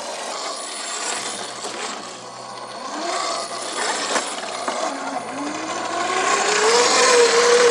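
Electric motor and gearbox of a scale RC crawler whining as it drives, the pitch rising and holding higher in the last few seconds. Water splashes and a few clicks of tyres on stones come through as it wades through a shallow rocky creek.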